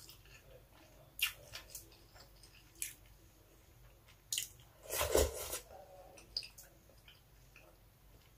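Close-miked mouth sounds of a person eating rice and mung bean soup: chewing and wet lip smacks, with sharp clicks scattered through and a louder, longer burst about five seconds in.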